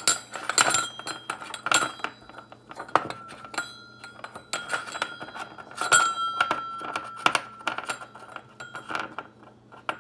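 Stainless steel tumblers clinking and knocking against each other and the glass stovetop as a finger rubs ghee around inside them, a few knocks leaving the cups ringing briefly with a clear tone.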